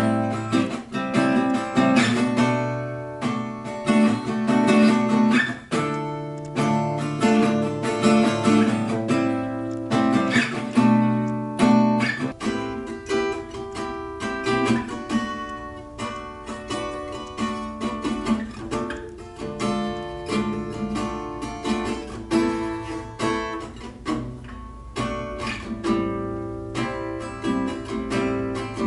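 Acoustic guitar played without vocals, plucked and strummed notes in a continuous passage.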